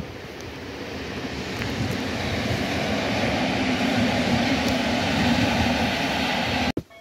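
Regional electric multiple unit rolling across a railway bridge: a steady rumble of wheels on rail that grows louder over the first few seconds as the train passes, then cuts off suddenly near the end.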